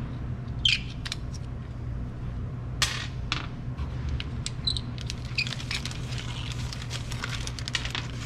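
Scattered light clicks and taps as small CVT primary clutch parts are handled on a workbench with a screwdriver. The clicks come more often in the second half, over a steady low hum.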